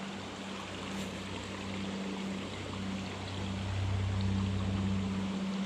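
Creek water running, with a steady low hum underneath that grows slightly louder about four seconds in.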